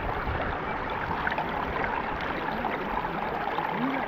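Steady rushing of river water, an even wash of noise.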